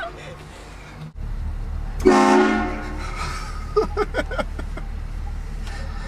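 Car-mounted train horn giving one loud blast about two seconds in, over a steady low engine rumble.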